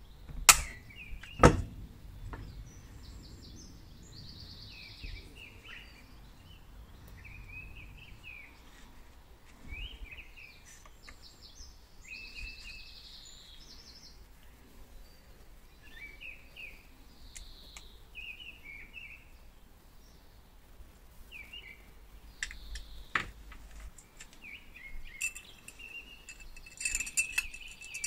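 Two sharp snaps about a second apart near the start as a hand pop-rivet gun sets rivets in the hair drier's motor housing, then birds chirping and singing throughout, with a few light metallic clicks and clinks near the end.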